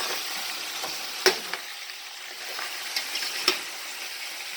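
Cubed pork sizzling steadily as it fries in hot oil in a pot, while it is stirred, with sharp knocks of the utensil against the pot, the loudest two about a second in and past three seconds.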